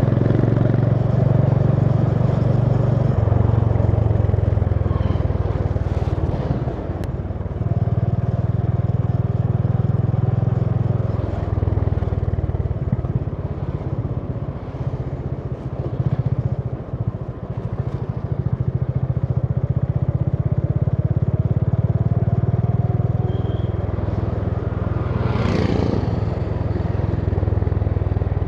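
Honda CB350 H'ness single-cylinder engine running on the move, a steady low exhaust note that eases off and picks up again a few times. A short burst of noise is heard near the end.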